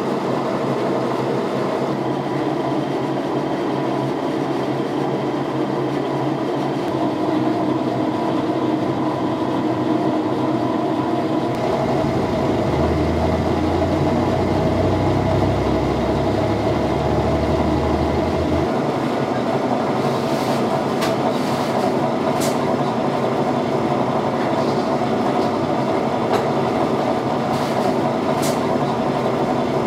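Drum coffee roaster running: a steady mechanical rumble and rattle. A deep hum joins it for several seconds in the middle, and a handful of sharp clicks come near the end.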